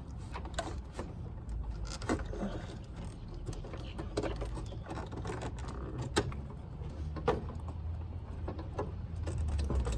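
A car engine idling, a steady low rumble, with scattered clicks and knocks over it; the rumble grows louder near the end.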